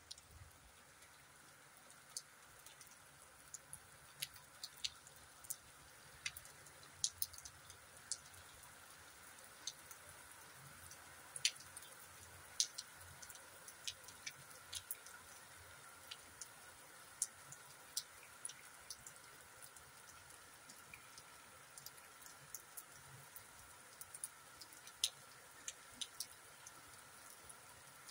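Rain falling: a faint steady hiss with scattered sharp taps of drops landing close by, irregular and a few each second.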